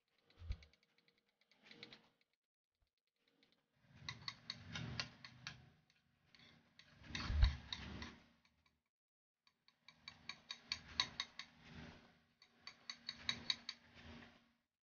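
Palette knife scraping and dabbing paint across a hard board, in several bursts of rapid rasping clicks, with a dull knock about seven seconds in.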